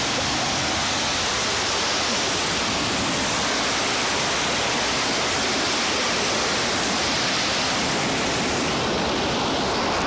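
Fast white water from a waterfall pouring and splashing over boulders close by, an even, unbroken rush.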